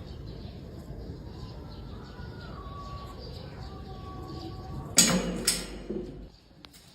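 Faint, short high calls over a steady background noise, then two sharp knocks about half a second apart near the end.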